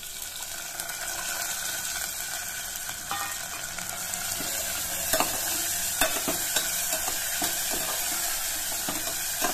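Split moong dal sautéing in hot oil in a pressure cooker: a steady sizzle, with a long metal spoon stirring and clicking against the pot now and then, more often in the second half.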